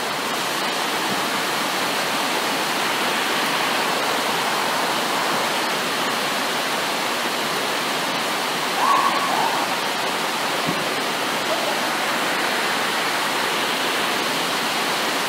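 Steady, even rushing noise with no clear source, with a brief shout about nine seconds in.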